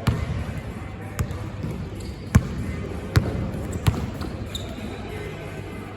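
Basketball bouncing on an indoor court floor: about five sharp, irregular thuds, the loudest a little over two seconds in, over a murmur of players' voices.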